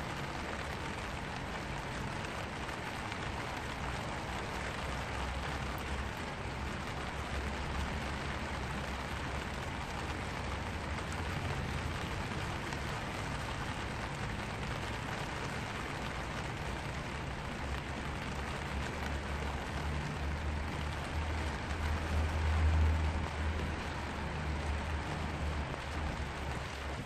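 Rain falling steadily on a black vinyl umbrella, heard from underneath it. A low rumble runs beneath the rain and swells briefly about three-quarters of the way through.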